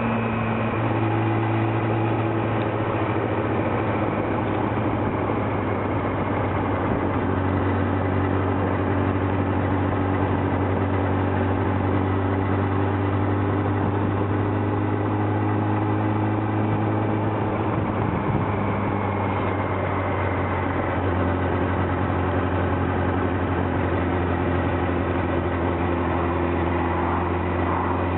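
Triumph Daytona 600's inline-four engine running steadily at a low, even speed with a deep hum.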